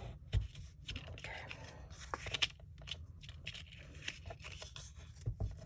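Kraft cardstock being folded and creased by hand: scattered scraping and rubbing of card, with short light taps of the card against the work surface.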